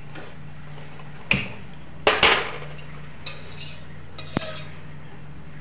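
Aluminium frying pan and steel slotted spoon clanking on a gas stove: a few separate metal clanks, the loudest a double clank about two seconds in, over a steady low hum.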